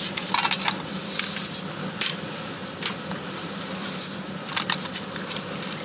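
Car engine idling, heard from inside the cabin as a steady low hum. A quick cluster of clicks and rattles comes in the first second, then a few single clicks.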